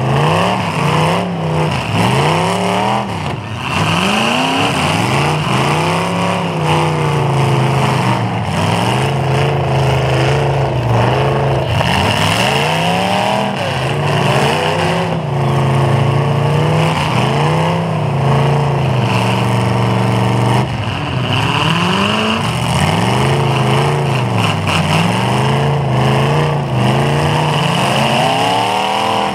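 Demolition derby cars' engines revving hard, pitch rising and falling again and again over a steady engine drone, with occasional sharp knocks from collisions.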